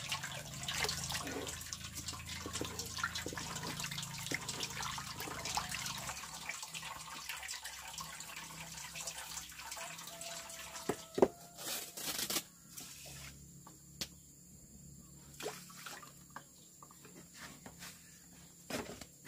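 Water splashing and dripping, busiest for the first six seconds, then thinning to scattered drips and small knocks, with one sharp knock about eleven seconds in.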